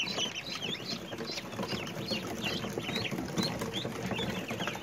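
A flock of three-day-old chicks peeping continuously, many short high cheeps overlapping, over a low scuffling rustle.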